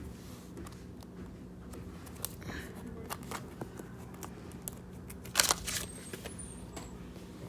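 Trading cards being handled and laid on piles: scattered light taps and scrapes of card stock, with a louder clack about five and a half seconds in.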